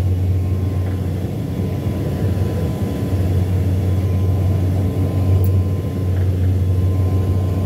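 Cabin noise inside a Saab 340B+ turboprop airliner on approach to land: the propellers make a steady, loud low drone, with engine hum above it and a faint high steady tone.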